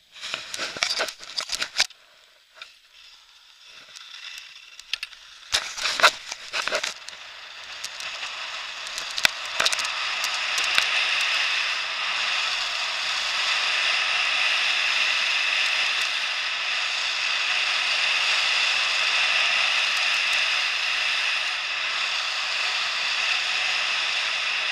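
Skis running over packed snow, heard through an action camera's housing. Scattered scrapes and crackles come first, then from about eight seconds in a steady hiss of skis and wind grows louder and holds as the skier picks up speed.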